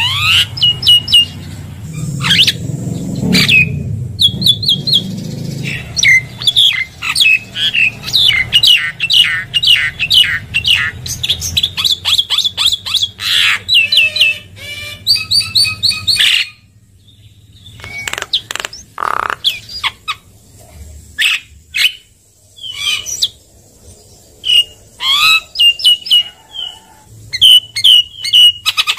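Javan myna (jalak kebo) singing: a fast, dense string of chirps, short whistles and squawks. After about sixteen seconds the song drops off abruptly and the calls come in sparser bursts.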